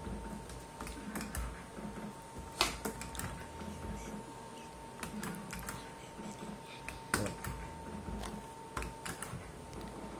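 Clicking and clunking from a 'Back to the Features' fruit machine as its buttons are pressed and its reels spin and stop, with a sharper click about two and a half seconds in and another about seven seconds in. A faint steady high tone runs underneath and stops near the end.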